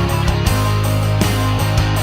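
Background rock music with distorted electric guitar, a heavy bass line and a steady drum beat.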